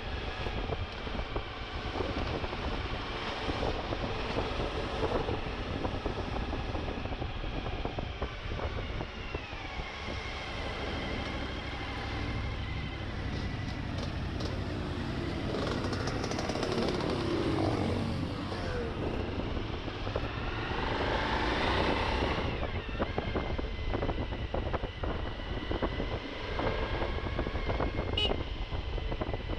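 Suzuki V-Strom motorcycle engine running while riding off road, its pitch rising and falling with the throttle: it drops about a third of the way in, then climbs and falls again about two-thirds through. Rumble and scattered knocks from the rough ground run underneath.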